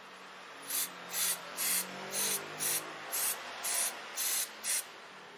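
Aerosol brake cleaner sprayed onto a disc brake caliper in about nine short hissing bursts, roughly two a second, to wash off leftover brake fluid.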